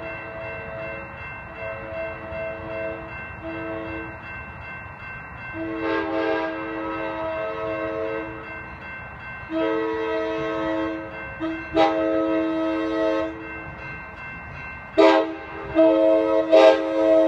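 An approaching train's multi-chime air horn sounding a series of blasts for the grade crossing, some short and some long, getting louder as it nears. A crossing bell rings steadily underneath.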